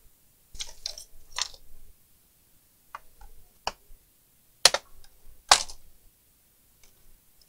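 Plastic clicks and snaps as the Packard Bell EasyNote TJ74 laptop's plastic cover is prised off its clips: a quick cluster of clicks at first, then single sharp snaps, the two loudest a little under a second apart past the middle.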